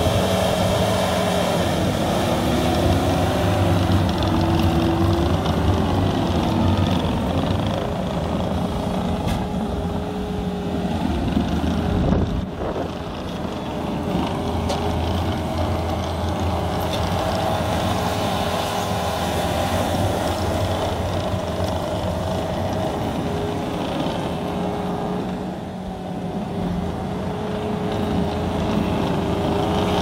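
Case TV450 compact track loader's diesel engine running steadily under load as the machine pushes and grades dirt, its pitch shifting a little now and then. A single sharp knock about twelve seconds in.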